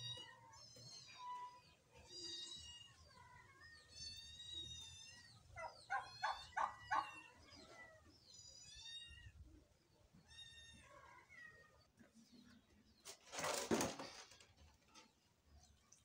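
Poultry calling: repeated high, wavering calls, with a short run of lower, louder pulsed calls about six seconds in. Near the end comes a brief loud clatter.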